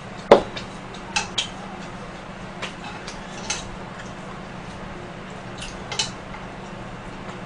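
Wooden chopsticks clicking and tapping against a frying pan and dishes while picking up smoked duck slices: a handful of sharp, scattered clicks, the loudest about a third of a second in.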